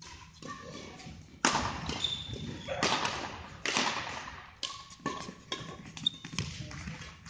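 Badminton rally: rackets striking the shuttlecock several times, roughly a second apart, each sharp hit ringing in the echo of a sports hall, with shoes squeaking and feet thudding on the court floor.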